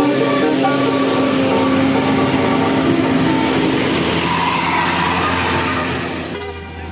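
A bus passing close by, its engine and road noise loud and steady, with the last notes of its multi-tone telolet horn at the start. The noise drops off suddenly about six seconds in.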